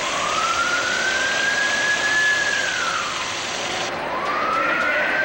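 Submarine alarm siren sounding twice, each time rising in pitch, holding, then falling away, over a loud steady rushing hiss of water flooding in.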